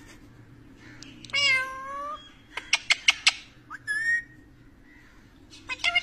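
A pet green parakeet calling: one drawn-out call, then a quick run of about five sharp chirps, a short call a second later, and a fast chattering series of notes starting near the end.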